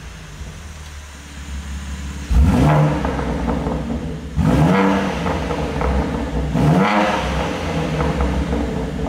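BMW G80 M3's S58 twin-turbo straight-six, fitted with decat downpipes and the exhaust set to Sport mode, idling low and then revved sharply three times about two seconds apart. Each rev rises and falls quickly in pitch.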